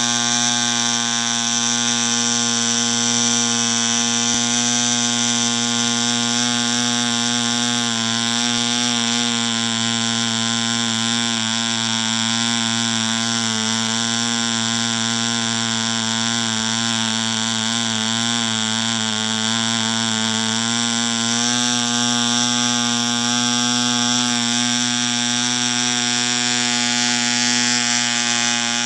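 PAW 80 BR C 0.8cc ball-raced, Schnuerle-ported model diesel engine running steadily and driving a propeller, with a buzzing, even note. Its pitch wavers slightly through the middle while the compression lever on top of the cylinder is adjusted, then settles.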